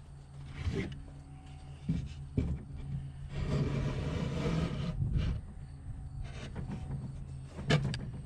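Wooden boards being handled: a pine box set down on a table and its cut front panel fitted against it, with a handful of light wooden knocks. A steady low drone runs underneath.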